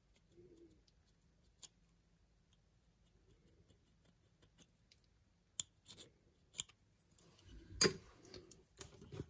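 Small scratches and faint ticks of a pointed metal blade against a plastic lens adapter while the edges of the taped-on chip are marked. These are followed by a few sharper clicks and then a cluster of handling knocks, the loudest about three quarters of the way through, as the metal tool is laid down on the table.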